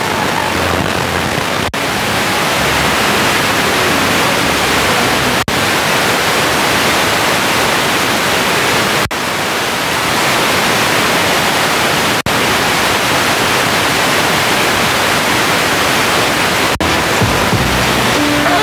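FM radio static from a phone's FM receiver tuned between stations: a loud, steady hiss with no station. It cuts out for an instant five times, about every three to four seconds, each time the tuner steps up a tenth of a megahertz to another empty frequency.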